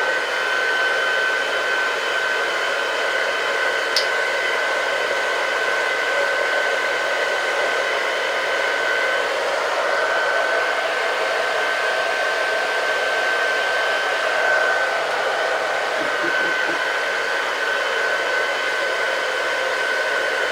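Handheld hair dryer running steadily: a constant rush of blown air with a steady high whine from its motor. A single short click about four seconds in.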